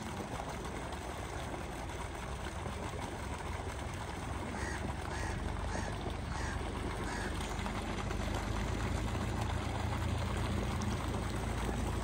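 Water pouring from a pipe and splashing steadily into a pond. Near the middle an animal gives a run of about six short, faint calls, and a low rumble grows louder toward the end.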